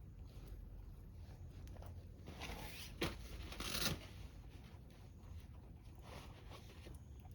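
Rustling and handling noises, with a sharp click about three seconds in and a short, louder burst of rustling just before four seconds.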